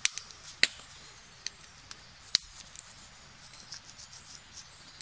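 Outer bark being peeled and stripped by hand from a thorn-bush stem to reach the inner bark for cordage: a few sharp, scattered snaps and cracks.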